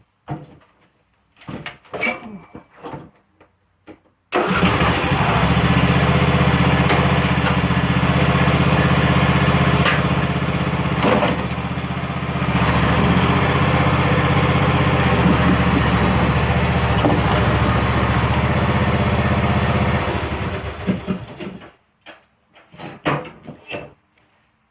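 Riding lawn mower engine cutting in abruptly about four seconds in and running steadily at a constant pitch as the mower tows another mower, then dying away near the end. A few knocks and clicks come before and after it.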